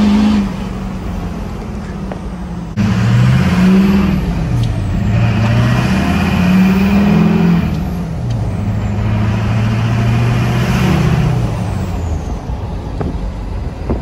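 LLY Duramax 6.6-litre V8 turbodiesel pickup engine heard from inside the cab, pulling under load. Its note rises and falls several times as it accelerates and eases off.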